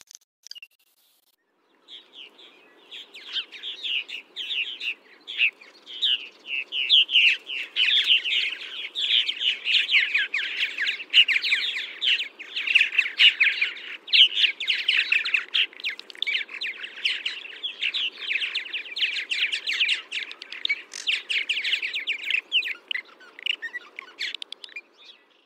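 Barn swallows twittering: a dense, continuous run of rapid high chirps that starts about two seconds in. A faint low background noise runs beneath it.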